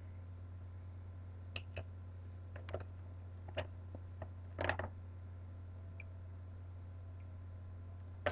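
Scattered light clicks and a brief rustle from handling small plastic nebulizer parts and a medicine vial, over a steady low hum.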